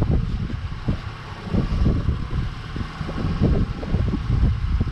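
Wind buffeting the microphone in irregular gusts, over the steady running noise of a glass-bottom motorboat.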